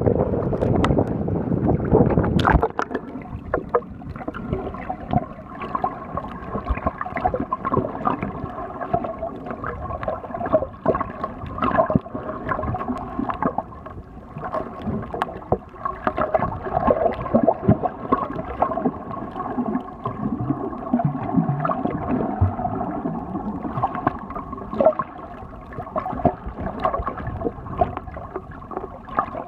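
Water sloshing at the surface as the camera goes under. About two and a half seconds in it cuts to muffled underwater sound: gurgling and scattered crackles over a steady hum.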